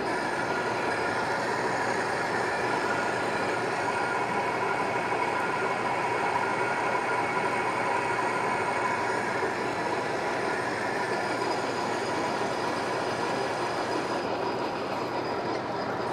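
American Pacemaker engine lathe running under power while a boring bar takes a cut inside the bore of a cast vise swivel base. It makes a steady mechanical drone with a faint steady whine through it.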